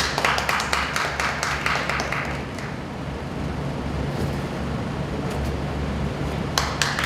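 Audience clapping in quick, sharp claps for the first couple of seconds, fading out, then starting again near the end, over a steady low hum.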